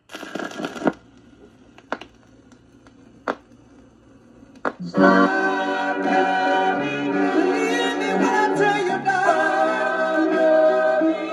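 A 1965 soul 45 rpm vinyl single playing. A short opening burst is followed by three sharp clicks about a second and a half apart, then the full band and the lead vocal come in about five seconds in.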